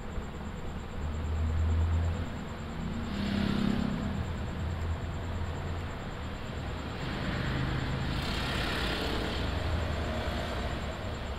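Low rumble of motor vehicles running and passing, growing louder and fading more than once.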